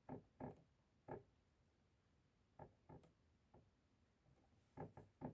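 A bird pecking at a window pane: faint, sharp taps at an irregular pace, some single and some in quick runs of two or three.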